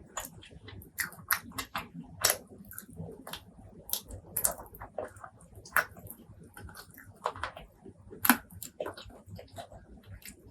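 Close-miked eating: irregular bites and chewing with sharp, crackly clicks a few times a second.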